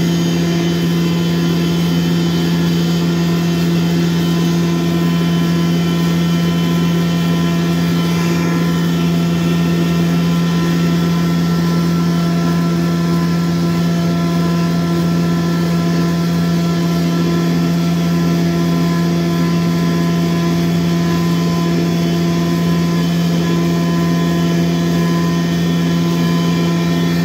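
Electric pulverizer mill running at a constant speed while grinding dried moringa leaves into powder, a loud, steady motor hum that does not change.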